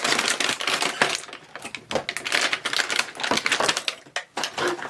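Packaging being opened and handled: a rapid, uneven run of plastic crinkles, rustles and small clicks.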